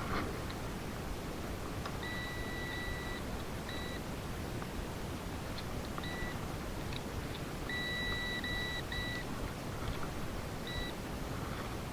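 Digital fish scale beeping while weighing a small spotted bass: a string of steady, high single-pitch electronic beeps, one long and the rest short and irregularly spaced, with three close together past the middle.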